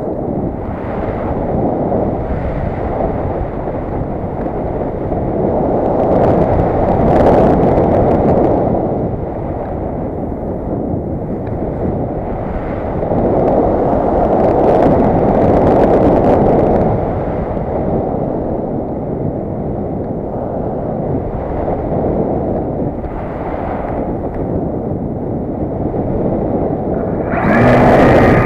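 Wind rushing over an action camera mounted on a glider in flight: a dense low rush that swells and eases every few seconds. A steady pitched hum comes in near the end.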